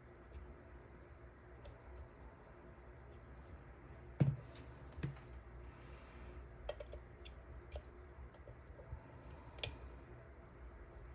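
Faint, scattered small clicks and taps of lock picking tools working in a dimple lock cylinder, with a louder knock about four seconds in and a sharp click near the end.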